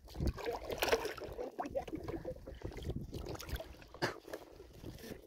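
Shallow muddy water sloshing and splashing in uneven strokes as someone moves a pole or paddle through it.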